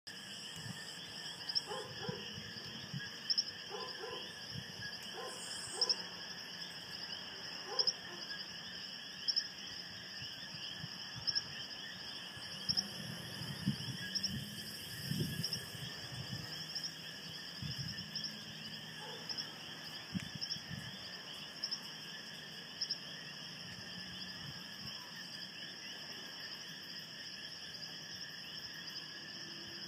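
Steady chorus of insects, several layered high-pitched trills, with a short chirp repeating about every one and a half seconds. Occasional low knocks and rumbles come through underneath.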